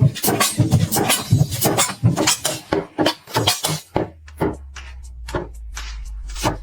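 Knife slicing and chopping through fruit on a cutting board: a rapid run of crisp cuts and taps that thins out to scattered ones about four seconds in, when a low steady hum comes in underneath.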